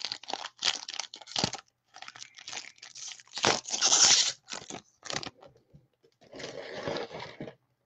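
Foil wrapper of a trading card pack being torn open and crinkled, a run of short irregular rustles with the longest, loudest tear about three and a half seconds in and another near the end.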